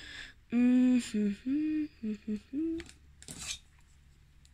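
A person humming a short tune of about six held notes, without words.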